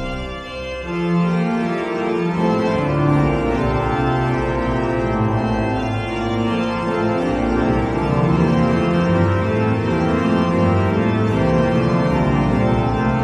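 Pipe organ music: sustained chords, with notes in the bass and middle changing about every second.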